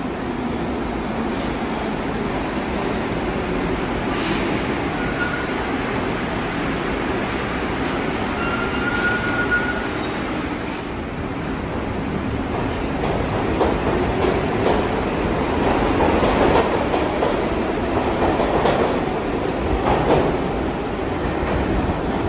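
R62A subway train pulling out of a station, its steel wheels clattering over the rail joints. The rumble and clatter grow louder over the second half as the train gathers speed, with two brief high-pitched wheel squeals in the first half.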